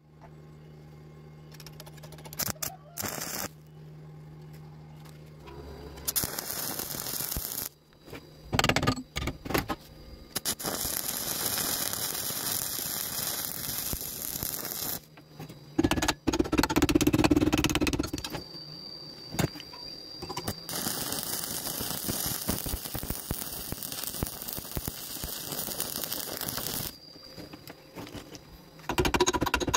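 Stick (arc) welding a rebar corner joint with a 2.5 mm rod at about 75 amps: the arc crackles and sizzles in several runs, with short breaks between them. A steady low hum and a few knocks come before the welding starts.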